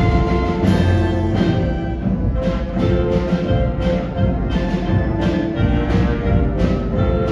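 Concert band playing, with sustained brass and woodwind chords over timpani and percussion accents that come about once or twice a second.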